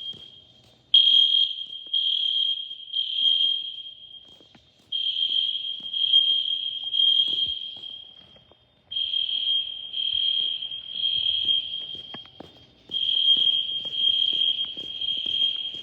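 Building fire alarm horns sounding the temporal-three evacuation signal: four groups of three high beeps, each group followed by a longer pause.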